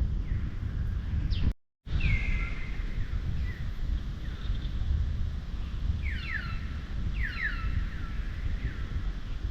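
Wind buffeting the microphone as a steady low rumble, cut by a brief dropout about a second and a half in. Over it come short, high chirps that fall in pitch, several in quick succession near the middle and later on.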